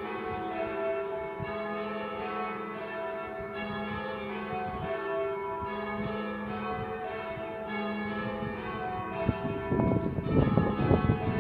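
The back four bells of a church ring, rung full-circle in English change ringing: an even sequence of strikes, each bell ringing on under the next. Near the end, loud irregular bursts of low noise come in over the bells.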